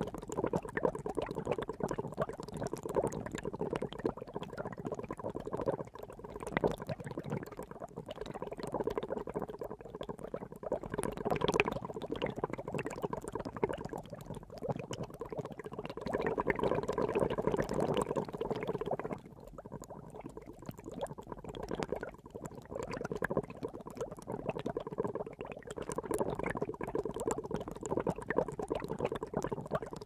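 Water at a rolling boil, bubbling continuously and unevenly, swelling and easing, with a brief softer spell about two-thirds of the way through.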